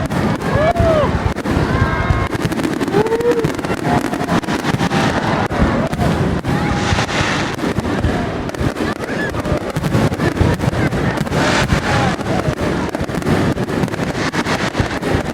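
A dense, continuous fireworks barrage: rapid bangs and crackling without a break, with several bursts of hiss, over the voices of onlookers.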